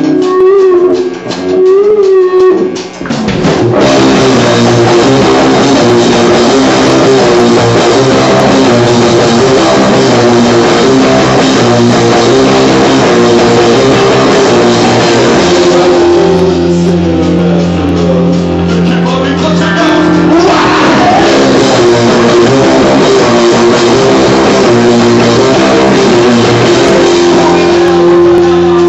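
Loud rock music with guitar and drum kit; after a few seconds of wavering guitar notes the full band with drums comes in about four seconds in and plays on steadily.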